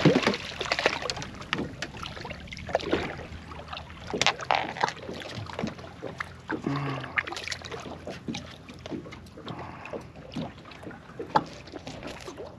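Irregular knocks, clicks and clatter of handling on a small fishing boat while a small shark is unhooked for release, over steady wind and water noise.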